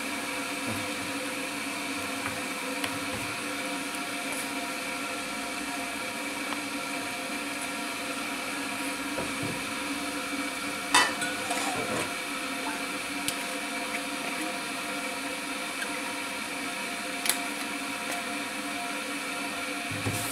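A steady mechanical hum made of several held tones, like a fan or small motor running. A sharp knock comes about halfway through and a lighter click a few seconds later.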